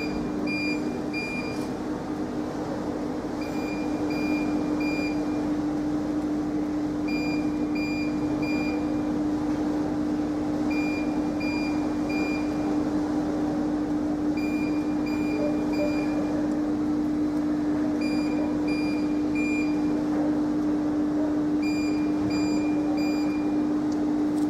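A steady low hum with an electronic beeper sounding groups of three short, high beeps, repeating about every three and a half seconds.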